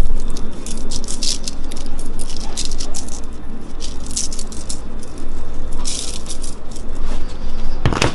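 Spice shaker bottle shaken over raw chicken breasts on a foil-lined tray, rattling in repeated short bursts. It ends with a single loud knock as the bottle is set down on the counter.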